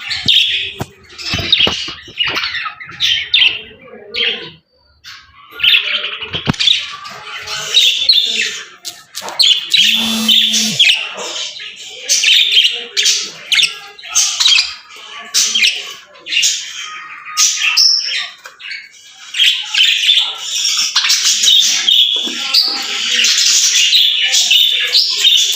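A group of budgerigars chattering and warbling in dense rapid chirps and squawks, with a brief lull about four seconds in.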